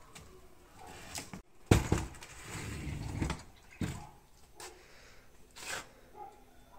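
Work noises from handling a wooden door clamped on a masonry bench: a sharp knock, a stretch of rough scraping, then another knock and a short scrape.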